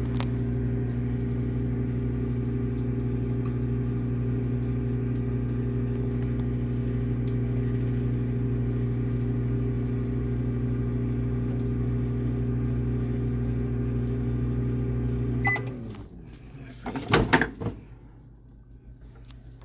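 Microwave oven running with a steady hum, which cuts off abruptly about fifteen seconds in. A brief clatter follows a second or two later.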